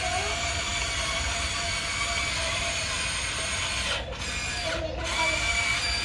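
Huina remote-control excavator's electric motors and gearboxes whirring steadily as it drives on its tracks, cutting out briefly twice, about four and five seconds in.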